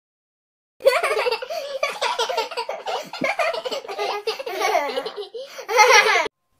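A baby laughing, a run of high giggles and belly laughs that starts about a second in and cuts off suddenly near the end.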